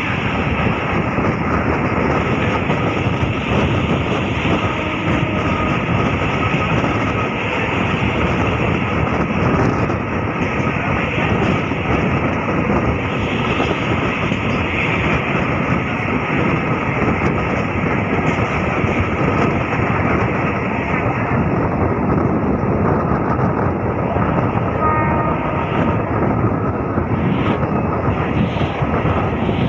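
MEMU electric passenger train running at speed, heard at an open carriage doorway: a steady rumble of wheels on the rails mixed with rushing air.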